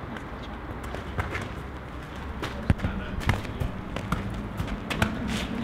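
A ball being kicked and bouncing on hard ground: a string of sharp thuds at irregular intervals, the loudest a little under three seconds in.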